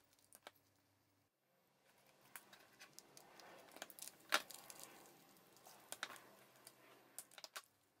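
Faint, scattered clicks and snips of scissors trimming soft, partly cured resin drips and of the resin pieces being handled, the loudest about four seconds in.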